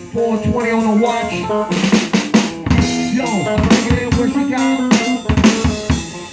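Music from a jam session: a drum beat of kick and snare hits under a melodic line that steps and glides in pitch.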